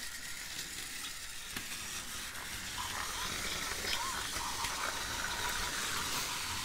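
Several battery-powered TOMY Trackmaster toy trains running together on plastic track: a steady high whirring hiss of small electric motors and gears, growing slightly louder.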